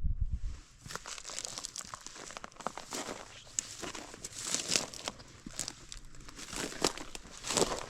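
Footsteps crunching and scraping on loose rock and gravel, an irregular run of crackling scuffs.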